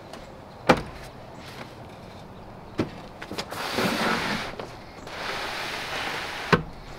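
Plywood drawer box being test-fitted into a carpeted pickup bed: a few sharp wooden knocks as it is set down and bumped, and a rushing scrape in between as it slides over the bed-rug liner.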